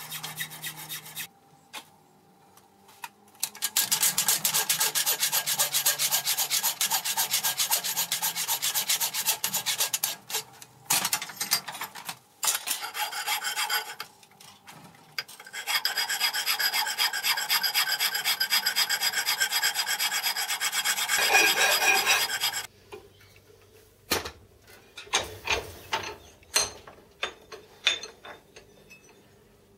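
Hand file rasping back and forth across a metal slide casting held in a bench vise, cleaning up the rough casting. The strokes come quickly in two long spells with short bursts and pauses between them, and a few knocks follow near the end.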